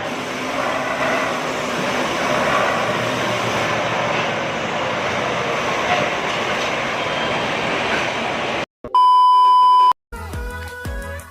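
A dense, steady noise that cuts off suddenly, followed by a loud one-second electronic beep tone. Music with a beat starts right after the beep.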